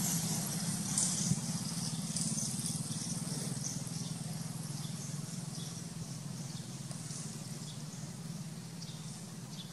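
A steady low motor hum under a high hiss, with faint short chirps repeating over it.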